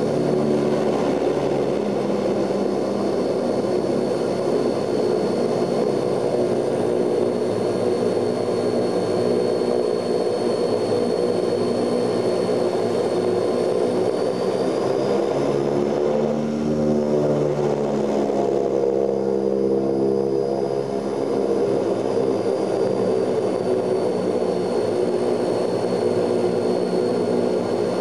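Ilyushin Il-18's four Ivchenko AI-20 turboprop engines running, heard from inside the cabin as a steady propeller drone with a high whine over it. About halfway through, the drone and the whine shift up in pitch and then settle back, the propeller notes beating against one another.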